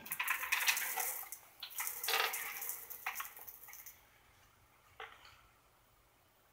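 Rustling and handling noise with many small clicks, then a single sharp click about five seconds in.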